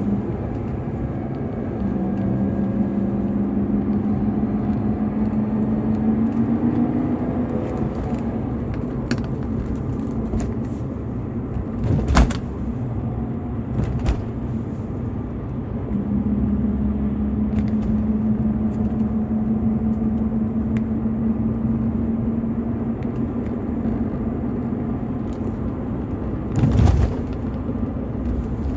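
BMW E46 320i's M52TU B20 inline-six engine running on its stock exhaust, holding fairly steady revs with its pitch climbing slowly twice. A sharp knock comes about twelve seconds in and a heavier thump near the end.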